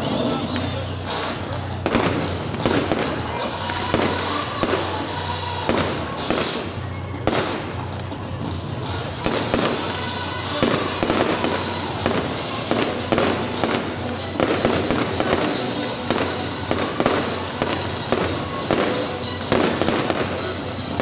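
Fireworks display: a rapid, irregular string of bangs and crackling bursts, over music played through the stadium's sound system.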